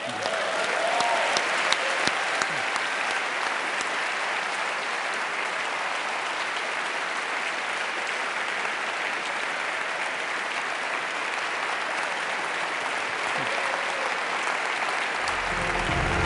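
Large audience applauding steadily in a theatre. Closing music with a low bass line comes in near the end.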